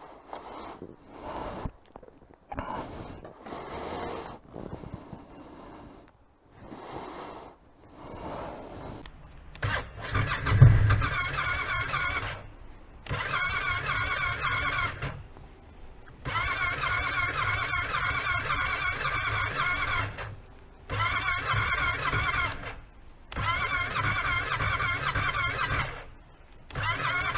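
Yamaha Tracer 700's electric starter cranking the engine in several separate tries of a few seconds each, beginning about ten seconds in, with a whirring whine; the engine never catches, which the owner puts down to a dead battery.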